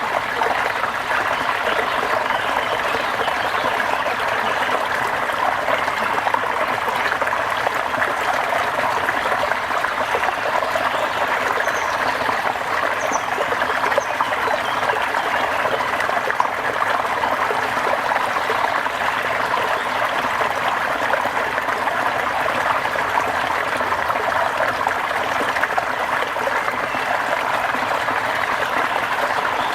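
Steady rain falling, an even, unbroken wash of water sound.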